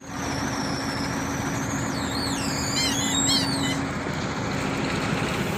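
Heavy diesel engine running steadily at a constant speed. High, wavering chirps sound over it, mostly between about two and four seconds in.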